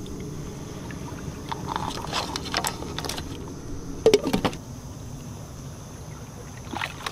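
A lid is set down on a cooking pot with one sharp clank and a short ring about four seconds in, after a few light knocks against the pot. A steady low rumble runs underneath.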